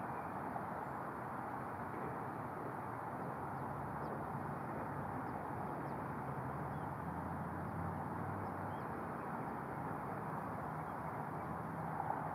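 Steady outdoor background rumble with a few faint, short high chirps scattered through it.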